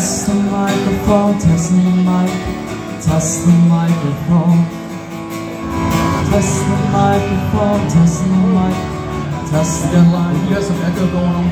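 Guitar played with a voice singing over it through the microphone, a sound-check run-through of vocals and guitar.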